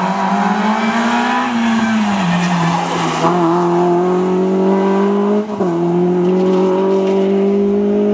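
Renault Clio rally car's engine held at high revs as the car takes the stage corners. The note rises and falls about two seconds in and dips briefly about five and a half seconds in.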